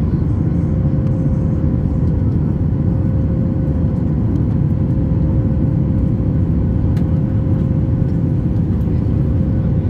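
Cabin noise inside a Boeing 737 MAX 8 climbing after takeoff: the steady low rush of its CFM LEAP-1B engines and airflow, with a thin steady hum on one note above it.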